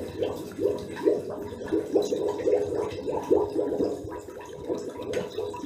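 Air blown out through the nose underwater, bubbling and gurgling in an irregular run of bubble bursts, about three a second.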